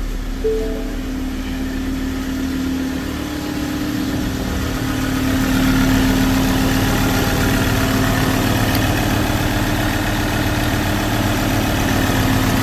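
Ford 3.2 five-cylinder common-rail diesel engine running at idle, steady, growing a little louder about five seconds in. It now runs after a new pressure-control solenoid was fitted to its high-pressure fuel pump to cure a no-start.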